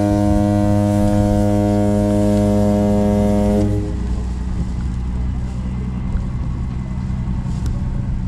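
Cruise boat's horn giving one long, steady blast that cuts off about four seconds in. A lower, quieter drone, the boat's engine, carries on after it.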